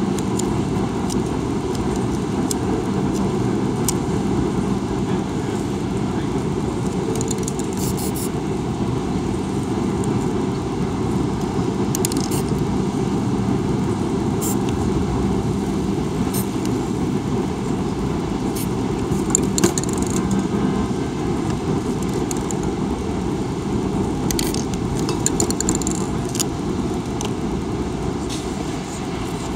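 Steady rumble of city street traffic, with a few short hisses of aerosol spray paint and light metallic clicks from the spray cans being handled.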